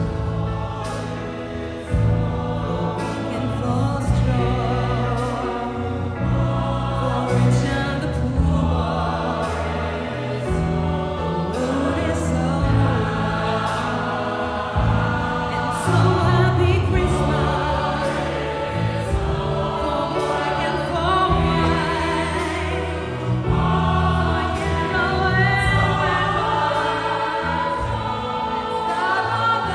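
Live pop song with a female lead singer and a full choir singing together over electric bass, with a light beat ticking about once a second.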